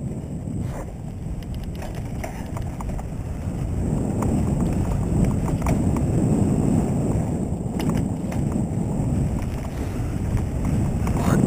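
Wind rushing over the microphone and the tyres of a Trek Rumblefish mountain bike rumbling on a dirt trail while riding, with scattered clicks and rattles of the bike over bumps. It gets louder about four seconds in as the speed picks up.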